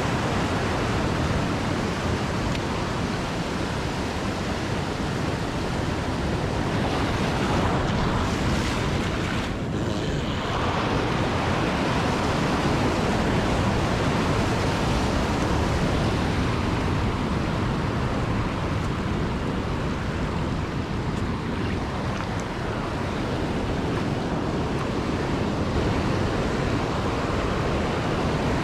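Rough surf breaking and washing over rocks: a steady rushing wash of water, with wind rumbling on the microphone.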